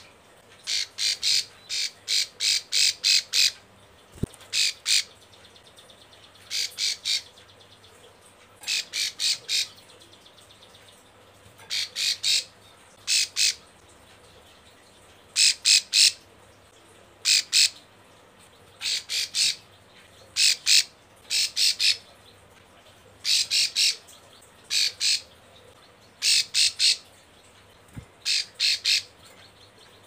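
A female ciblek sawah, a small caged prinia, gives its rapid clicking call in short bursts of several sharp notes, repeated every second or two. This is the call of a female in breeding condition calling for a male.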